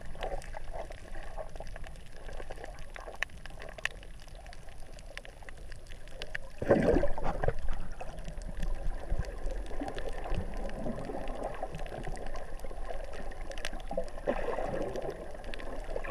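Water heard through a submerged camera while snorkelling: muffled gurgling and sloshing with small scattered clicks, and a louder rush of water about seven seconds in.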